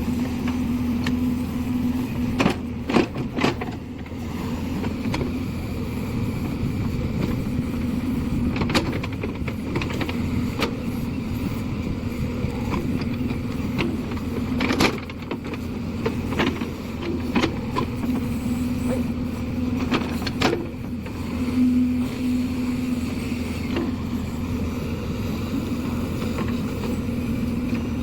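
JCB 3DX backhoe loader's diesel engine running steadily, with scattered sharp knocks every few seconds.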